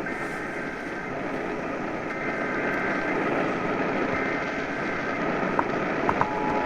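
Emergency Alert System header on AM radio: three one-second bursts of buzzing data tones, about a second apart. Near the end the steady two-tone attention signal starts. Steady radio static hisses underneath.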